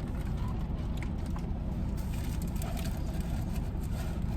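Steady low rumble inside a car cabin, with a few faint clicks and rustles of eating.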